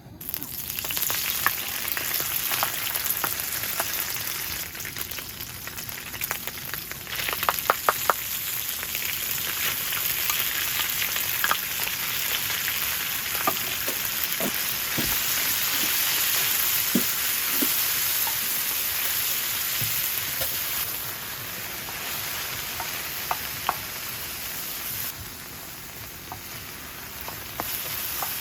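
Kimchi fried rice sizzling in a hot pan as it is stirred, with a spatula clicking against the pan now and then.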